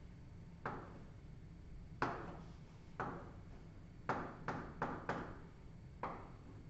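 Chalk tapping and knocking against a blackboard while writing numbers, about eight sharp taps at an uneven pace, with a quick run of four near the middle.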